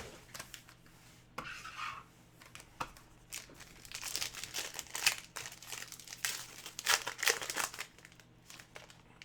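Trading card pack wrapper crinkling and tearing as it is opened and the cards handled, in irregular bursts of rustling that are busiest in the middle and later part.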